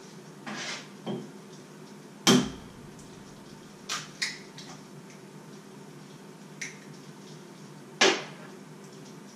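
Kitchenware being handled at the stove: about seven scattered knocks and clinks of dishes and pots, the loudest about two seconds in and another near the end.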